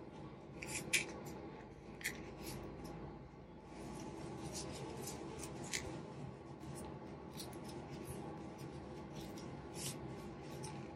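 Wooden knitting needles working thick yarn: faint scattered clicks and rubbing, over a low steady hum.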